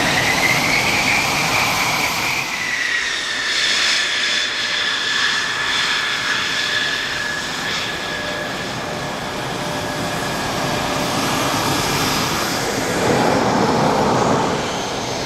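Mitsubishi F-2 fighters taxiing, their F110 turbofan jet engines running with a steady high whine over a broad roar. The whine rises slightly, then dips a couple of seconds in and holds. Near the end the roar swells louder for a second or two.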